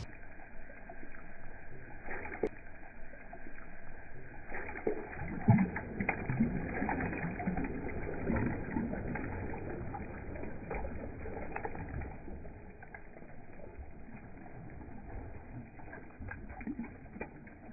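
Muffled water sloshing and splashing around a hand in shallow lake water, with irregular low gurgles and small clicks, loudest a few seconds in and fading toward the end.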